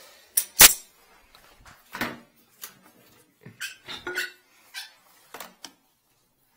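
Irregular metallic clinks and knocks of tools and fittings being handled while a toilet is taken apart at its base, about ten in all, the loudest a sharp knock about half a second in.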